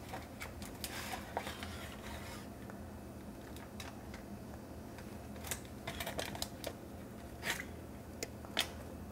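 Faint crinkling of aluminium foil and light clicks of a utensil as a baked foil packet of chicken is opened and the food lifted onto a plate. Small scattered ticks, with a few sharper ones in the second half.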